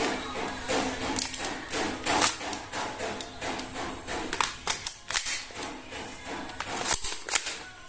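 Plastic toy guns clicking and knocking in irregular quick succession, several sharp clicks a second.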